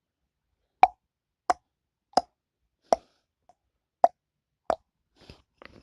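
Six short, sharp knocks, about two-thirds of a second apart, with a slightly longer pause before the fifth; a few faint clicks follow near the end. The source is unknown; the listener wonders whether it is the washing machine.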